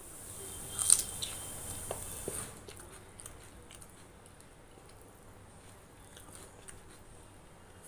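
Mouth sounds of chewing a mouthful of rice and curry eaten by hand, loudest in the first two and a half seconds with one sharp smack about a second in. After that, only faint scattered clicks and squishes as fingers work the rice on the plate.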